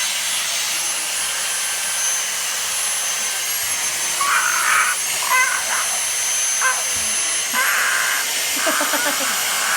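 Household vacuum cleaner running steadily, an even rushing noise with a thin high whine, with a few short changes in its sound over it from about four seconds in.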